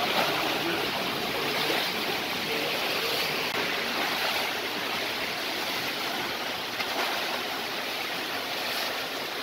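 Steady rush and splash of rainwater running across a flooded pavement and street.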